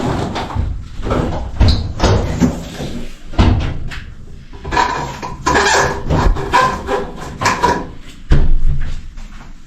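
Irregular knocks and thumps as a washing machine is moved and set into position, a few of them sharp and loud.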